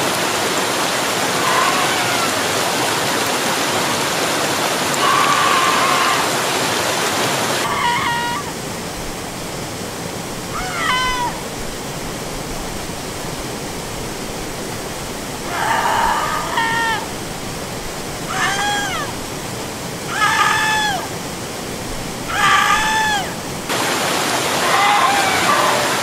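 Waterfall rushing steadily while a person lets out a series of high, wailing screams, each about a second long and sliding down in pitch at its end. The screams come about every two to three seconds from about a third of the way in. The water noise is louder at the start and again at the very end.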